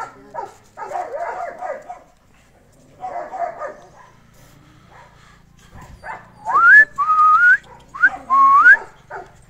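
Labrador puppies whimpering: short whiny calls in the first few seconds, then several loud, high whines from about six seconds in, each rising in pitch.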